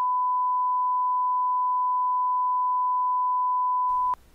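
A censor bleep: a single steady, high pure tone held for several seconds over a spoken word, cutting off suddenly about four seconds in and leaving faint room tone.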